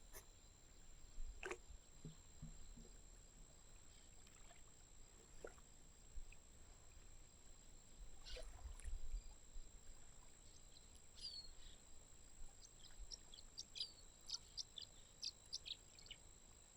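Near-silent lakeside ambience: a faint low rumble and a few soft clicks, then a run of quick, high bird chirps in the last few seconds.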